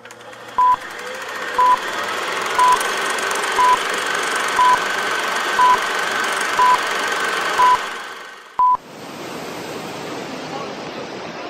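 Film-countdown leader sound effect: a short high beep once a second, eight times, then a slightly longer final beep, over a steady hiss with faint crackle. After it, a mountain river rushing through a rock gorge, a steady even roar.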